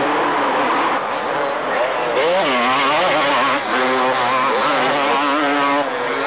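Several two-stroke motocross bikes racing, their engines revving up and down as they pass; the revving comes in louder about two seconds in.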